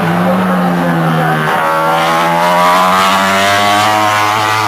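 MotoGP racing motorcycles running at high revs on the circuit. The engine note drops about a second and a half in, then climbs steadily as the bikes accelerate.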